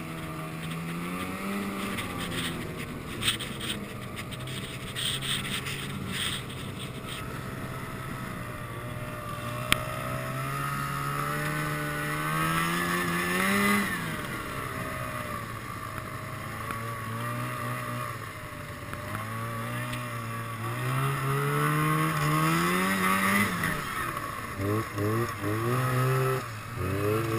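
Snowmobile engine running, its pitch climbing as the throttle opens and dropping back again three times, then a few quick throttle blips near the end. Two sharp knocks stand out, one early on and one about a third of the way in.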